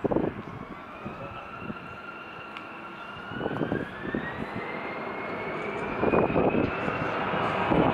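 The twin turbofan engines of an Embraer E-Jet spool up to takeoff power: a whine climbs steadily in pitch and the engine noise grows louder over the last few seconds.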